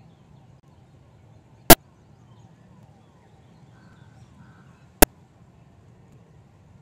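Two sharp, very loud clicks about three seconds apart over a faint outdoor background in which crows caw.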